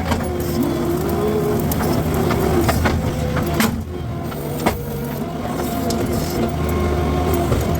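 Skid steer engine running steadily while clearing brush with a brush cutter attachment, with sharp cracks and knocks scattered through. The machine eases off briefly about four seconds in.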